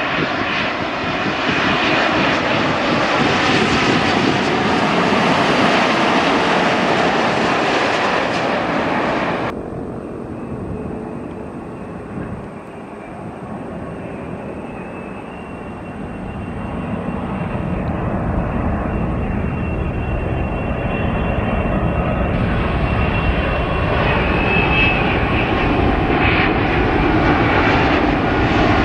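Jet airliner engines on landing approach: a loud, steady rush of engine noise that cuts off abruptly about ten seconds in. Then a Boeing 787's twin turbofans grow steadily louder as it comes in on final with gear down.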